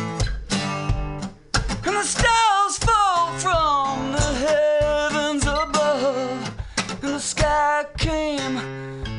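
A man singing a slow song to a strummed acoustic guitar, the held notes wavering with vibrato.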